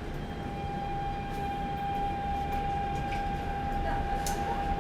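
Daegu Metro Line 1 train running, heard from inside the car: a steady rumble slowly growing louder, with a steady high electric whine from the traction drive that sets in at the start and holds at one pitch, as the train gets under way.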